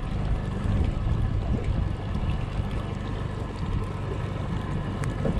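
Boat outboard motor running steadily at low speed, with wind on the microphone and water washing past the hull.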